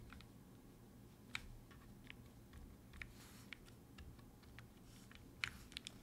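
Quiet, irregular keystrokes on a gasket-mounted Boop65 65% mechanical keyboard fitted with Gateron Black Ink V2 linear switches, plate foam and poly-fill in the case. The strikes come a few per second, unevenly spaced, with a couple of sharper ones about a second and a half in and near the end.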